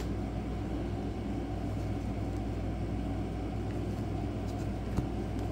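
Steady low background hum, with a faint tick about five seconds in.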